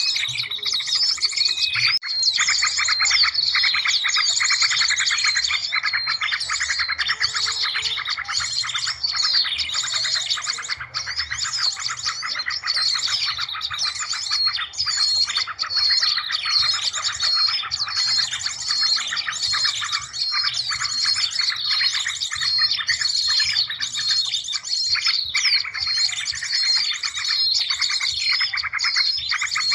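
Dense, unbroken chorus of small-bird chirps and rapid trills, many calls overlapping, with a squeaky high note repeating over and over: a compiled bird-lure call track meant to draw in small birds. A faint low hum runs underneath.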